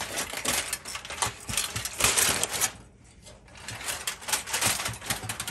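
Aluminium foil crinkling and rustling as it is handled around a turkey on a wire frying rack, in uneven bursts with a brief lull about three seconds in.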